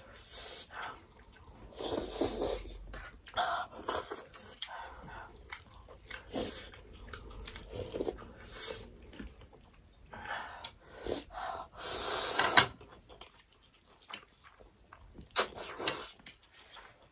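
Close-miked eating sounds: chewing and mouth noises from two people eating noodles and sausages, with irregular noisy bursts of slurping. The loudest bursts come about two seconds in and about twelve seconds in.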